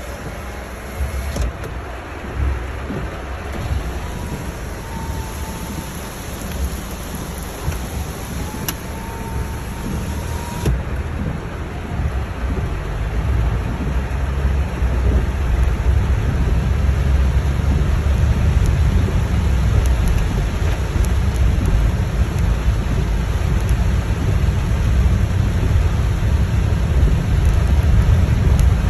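Heavy rain on a moving car, heard from inside the cabin: a dense rain hiss over a deep, steady rumble that grows louder in the second half.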